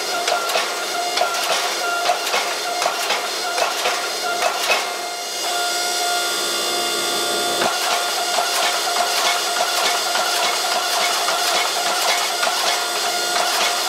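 Hammer blows on the hot steel billet as it is drawn out, sharp strikes coming roughly twice a second over a steady mechanical hum. There is a short break a little past five seconds in, after which the strikes come lighter and closer together.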